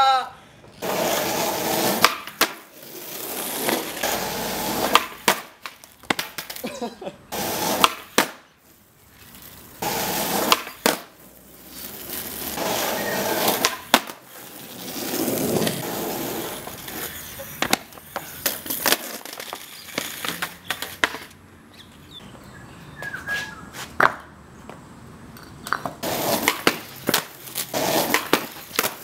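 Skateboard wheels rolling over a rough concrete driveway in runs of a few seconds, broken by repeated sharp cracks and knocks as the tail pops and the board strikes a small wooden rail and lands back on the concrete, over several attempts.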